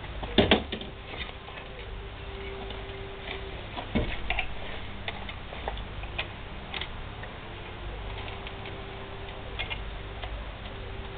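Irregular clicks and knocks of metal parts being handled while an engine is fitted to a moped frame, the loudest knocks about half a second in and again about four seconds in.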